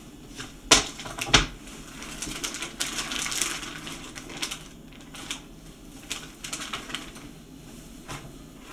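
Two sharp knocks about a second in, then a plastic zip-top freezer bag crinkling and rustling as a cooked roast is handled and lifted out of it, with a few light clicks after.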